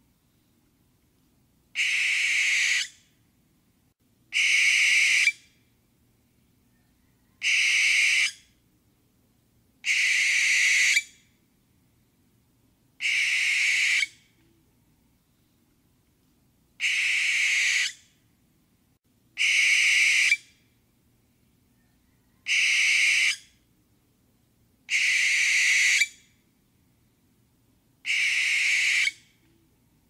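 Barn owl screeching: ten long, rasping screeches of about a second each, one every two to three seconds, with silence between them.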